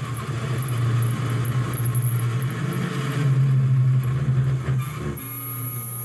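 A 2.2 kW Chinese spindle at 7,500 rpm on a DIY CNC router, driving a 6 mm four-flute carbide end mill through mild steel in conventional milling: a steady hum under a harsh cutting noise that swells and eases. About five seconds in, the cutting noise drops away, leaving the spindle's hum and a high whine.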